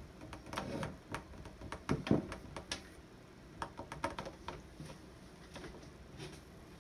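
Scattered light clicks and taps, with a couple of louder knocks about two seconds in: small cups and a metal measuring cup being handled on a wooden tabletop.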